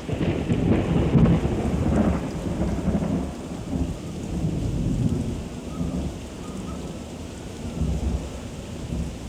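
Thunderstorm: a thunderclap breaks at the start and rolls on in deep rumbling swells for several seconds, over steady heavy rain.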